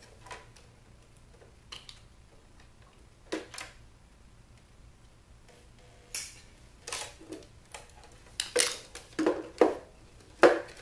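Scattered sharp clicks and knocks of aviation snips cutting the wires inside a plastic computer-speaker cabinet while the cabinet is handled. A few clicks come in the first half, then a closer run of louder knocks in the second half.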